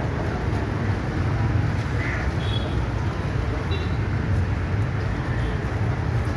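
Steady low rumble of street traffic and vehicle engines, with a few brief faint high chirps.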